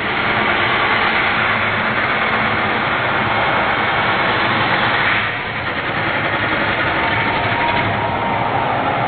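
Abrasive chop saw running and cutting through a metal E-track rail: a loud, steady grinding. It eases briefly about five seconds in, then carries on with a faint steady whine.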